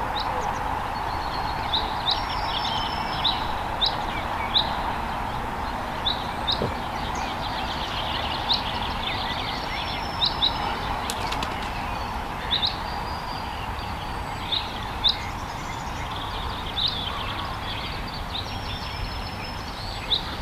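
Small birds chirping: short, sharp high calls repeated irregularly about once or twice a second, over a steady background hiss and a low rumble.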